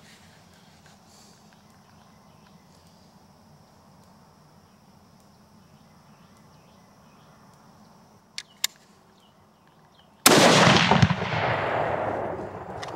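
A single rifle shot from a Ruger M77 chambered in 6.5x55 Swedish, about ten seconds in: a sudden, loud report whose echo dies away over a couple of seconds. Before it, faint quiet field ambience with a thin steady high tone and two small clicks just before the shot.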